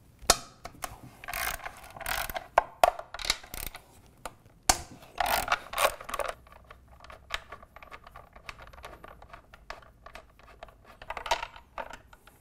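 Socket ratchet clicking in short bursts, backing out the breather bolts from a 7/16 in. deep-well socket on the air cleaner backing plate, with single sharp metal clinks in between. The bursts come about a second in, around five seconds in, and near the end.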